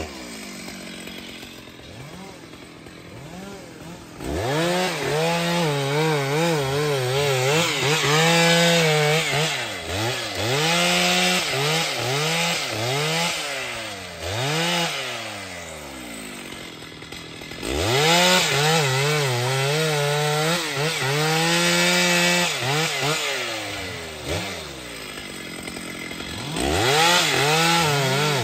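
Stihl MS 881 two-stroke chainsaw cutting through a thick log: running quieter for the first few seconds, then revving up and its pitch rising and falling again and again as the chain bites into the wood, easing off briefly twice before revving up again near the end.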